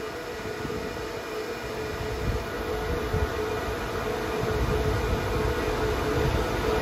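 CNC electric servo turret punch press running: a steady mid-pitched hum over an uneven low rumble, growing louder about halfway through.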